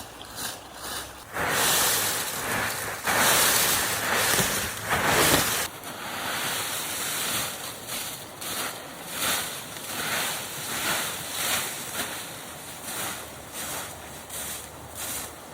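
Broom sweeping with repeated swishing strokes. The first few strokes are long and loud, then they become shorter and quicker, about two a second.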